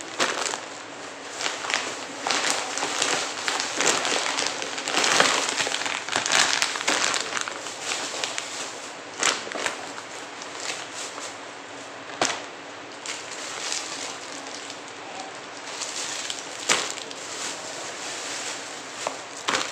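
Plastic snack packets and wrappers crinkling and rustling as they are handled and piled up, with a sharp crackle of the plastic now and then.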